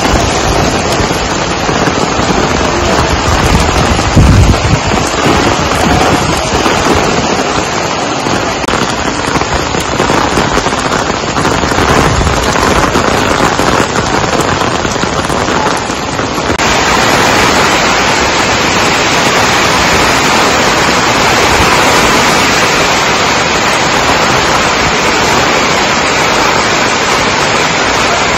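Heavy rain pouring onto wet paving, a dense crackling patter. About four seconds in there is a brief low rumble. About two-thirds of the way through it changes to a steadier, brighter hiss.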